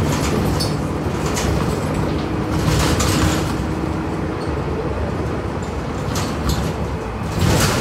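Inside a city transit bus under way: steady engine and road rumble with a low hum, and scattered short rattles from the body and fittings.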